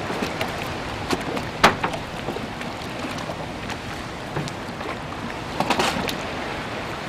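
Small waves lapping at the hull of a small cabin motorboat and the concrete slipway, a steady watery wash with a few sharp knocks and clicks, the loudest about one and a half seconds in.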